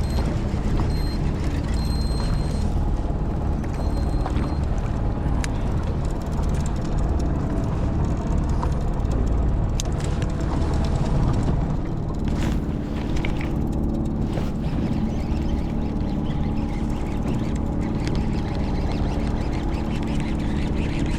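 Boat engine running steadily, with wind and water noise on the microphone.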